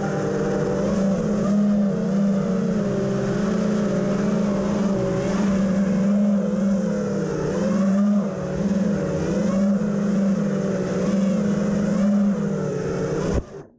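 FPV quadcopter's electric motors whining, the pitch wavering up and down with the throttle. The sound cuts off suddenly near the end.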